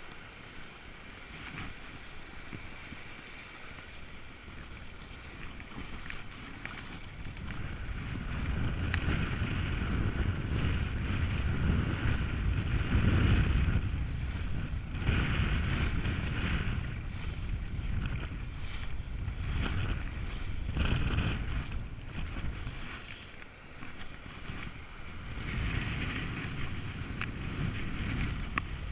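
Shallow surf washing in and out over sand, with wind buffeting the camera microphone; the rumble of the wind grows loudest in the middle and eases off again later.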